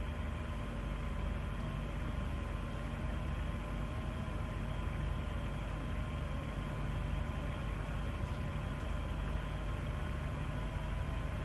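Steady low hum and rumble with two faint held tones, unchanging, with no sudden events. This is the waiting sound around the fuelled rocket on the pad before ignition, not engines firing.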